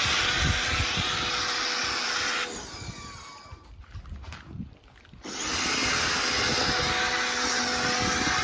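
Nilfisk pressure washer spraying foam through a Super Foam Sprayer: a steady hiss of spray over the pump motor's hum. It cuts out about two and a half seconds in and starts up again about three seconds later.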